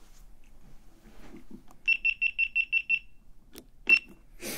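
A camera's electronic beeper: seven quick high beeps in a row, then a click and one more beep as the camera is handled, with a short rustle right after.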